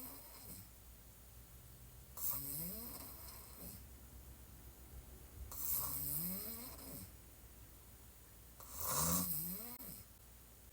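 A woman snoring hard with her mouth open while lying on her back: three long snores about three seconds apart, each rising in pitch, the last the loudest, after the tail of a previous snore at the start.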